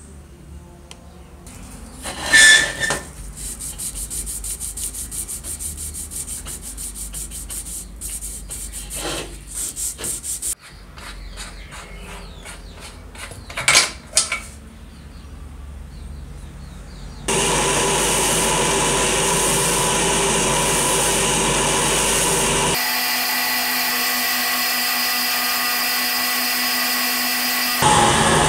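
Rapid, even metal scraping with a few sharp clinks as the brass fittings of an old kerosene stove tank are worked by hand. About seventeen seconds in, a small bench lathe starts running with a steady whine of several tones, and its low hum drops away about five seconds later.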